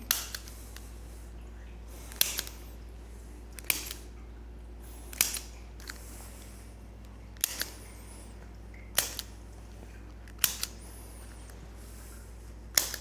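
Spring-loaded Activator adjusting instrument firing about eight sharp clicks, roughly one every one and a half seconds, some followed closely by a smaller second click. Each click is one quick adjusting thrust of the instrument's tip.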